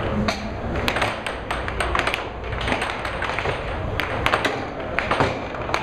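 Air hockey puck and mallets clacking on the table, a run of sharp, irregular taps as the puck is struck and knocks off the rails, over a steady hiss.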